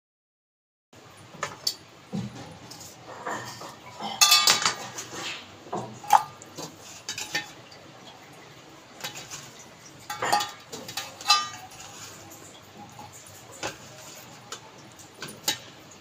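Kitchen utensils and a steel bowl clinking while potatoes are peeled and cut by hand: scattered taps and scrapes, with a few sharp ringing metal clinks, the loudest about four seconds in.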